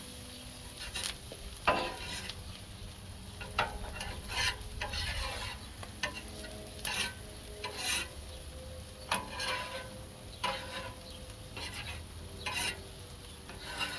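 Onions and sweet peppers sizzling in butter, with repeated scraping strokes of a cooking utensil pushing them across the hot cooking surface, roughly one a second at an uneven pace.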